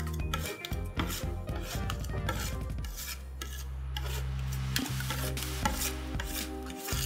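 Two metal spatulas scraping, chopping and smearing rolled ice cream mixture on a stainless-steel cold plate, a run of short scrapes and taps, over a steady low hum that starts partway through.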